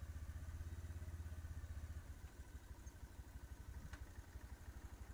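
Motorcycle engine running steadily at low speed, a faint, even low putter.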